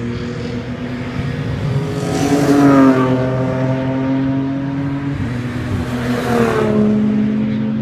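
Race cars at speed passing by, two louder passes about two and a half and six and a half seconds in, each engine note falling in pitch as it goes past, over a steady drone of other engines.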